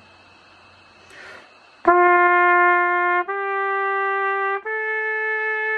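Trumpet playing the opening notes of a five-note scale upward (written G, A, B; concert F major): three sustained notes, each about a second and a half long and each a step higher, starting about two seconds in.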